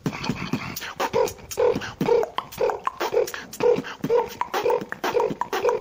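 Human beatboxing: a steady beat of mouth-made kicks and snares, with a buzzing hummed bass note about twice a second and sharp clicks between.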